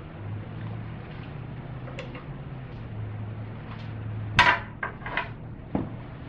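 Metal tools clanking on the engine as the old serpentine belt is worked off the tensioner: one loud clack about four seconds in, then three lighter clicks, over a steady low hum.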